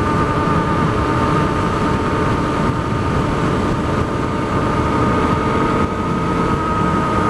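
Honda CRF250L's single-cylinder four-stroke engine with an FMF Q4 HEX slip-on exhaust, running at a steady cruising speed, over rushing wind noise on the helmet camera's microphone.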